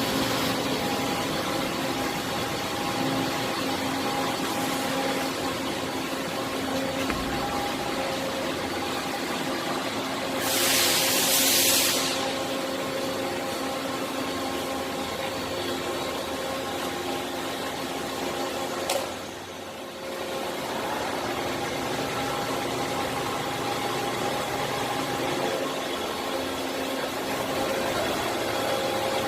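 Hankook VTC-200E CNC vertical turning and milling machine running with a steady mechanical hum made of several steady tones. About ten seconds in comes a hiss lasting under two seconds. Near twenty seconds a sharp click is followed by a brief dip in the hum before it resumes.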